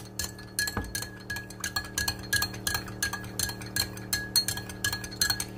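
Metal spoon stirring a drink in a tall drinking glass, clinking against the glass about four times a second, each clink ringing briefly.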